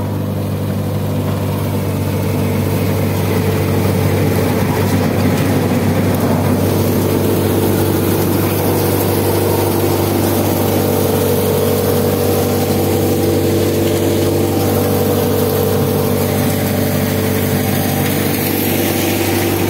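Tractor-powered soybean thresher running steadily as soybean plants are fed through it, with the tractor's diesel engine holding a constant speed underneath.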